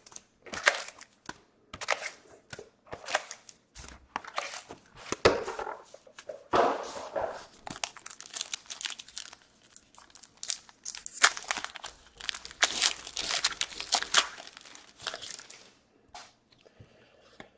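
Plastic wrapping and hockey card pack wrappers being crinkled and torn open, in short irregular rustles and rips that stop near the end.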